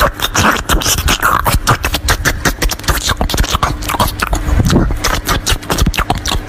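Close-miked biting and crunchy chewing of crisp foods such as raw broccoli stalk and fruit: a dense, unbroken run of crisp crunches and mouth noises.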